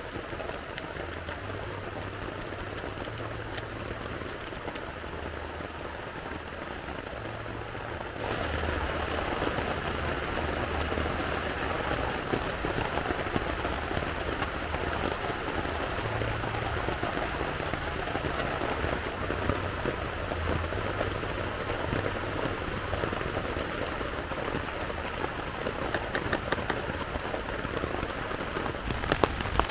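Steady rain falling, getting louder and heavier about eight seconds in.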